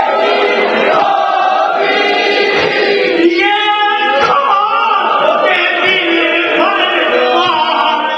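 Men's voices chanting a nauha, the Shia lament for the martyrs of Karbala, with a lead reciter on a microphone and others singing along. It is sung without instruments.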